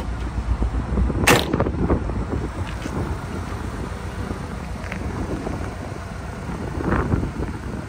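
Wind buffeting the microphone in uneven gusts, with one sharp click about a second in.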